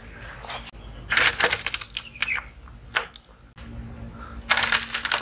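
A perforated metal skimmer spoon scoops cooked biryani rice from the pot and tips it into a plastic tray: several short scrapes and rustles of metal and rice, the loudest about a second in and near the end.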